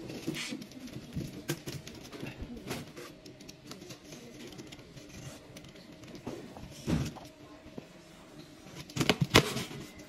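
Utility knife slitting the packing tape along the seams of a large cardboard carton, with cardboard rustling and scraping. There are a few sharper cardboard knocks about seven seconds in and again near the end.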